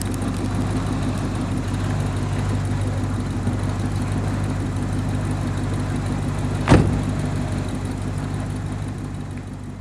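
Land Rover engine running steadily, with one sharp knock or clunk about two-thirds of the way through. The sound slowly fades toward the end.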